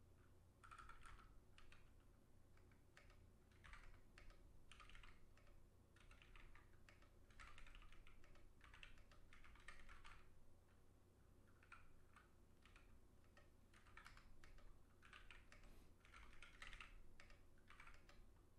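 Faint typing on a ZSA Moonlander split mechanical keyboard: slow, uneven clusters of key clicks with pauses between them, typical of a typist still getting used to the layout.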